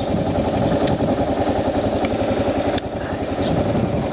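Motorcycle engine idling steadily, with an even low pulsing.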